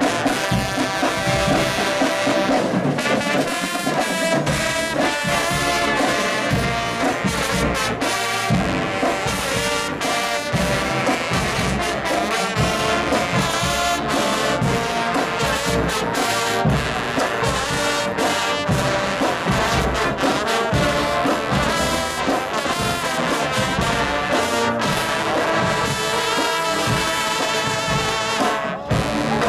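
A low brass choir, a large ensemble of trombones and other low brass, playing a piece together at a steady, loud level.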